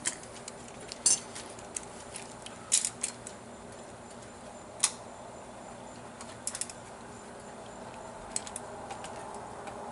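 Metal tools clinking against a small pot on a gas burner: a handful of sharp clinks and clanks, loudest about a second in and again near three seconds, over a steady low hum.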